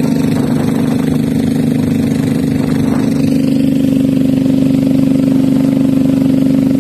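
A boat's engine running steadily at a constant pitch, getting a little louder about halfway through.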